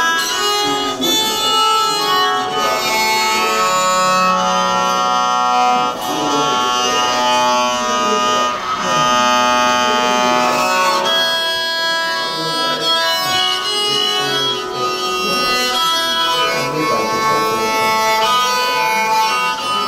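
Acoustic duo of wind and string instruments playing: long held, reedy notes stacked into chords that change every second or two.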